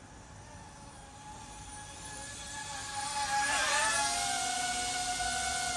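DJI Avata 2 FPV drone's propellers whining as it flies in, growing louder. About three and a half seconds in, the pitch dips and the whine then holds steady at close range.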